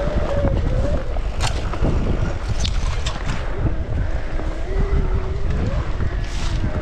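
Mountain bike riding a rough trail: wind buffeting the microphone with a steady low rumble, and the bike rattling and knocking over the ground a few times near the middle. A thin squeal sounds briefly at the start and again about five seconds in.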